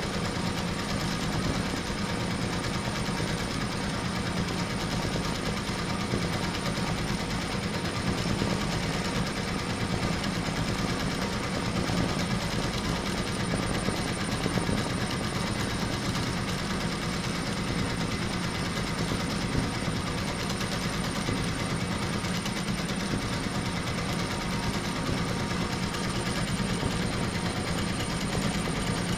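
HSW 12-needle high-speed embroidery machine stitching at speed: a steady, rapid mechanical chatter of needle strokes with a thin high whine over it.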